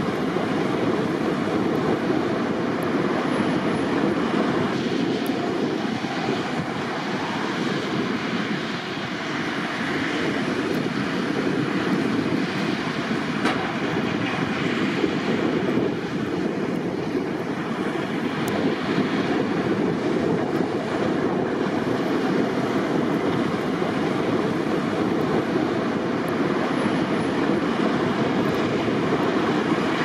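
Heavy snow-clearing machinery running steadily: a loud, continuous rumbling noise with no clear pitch.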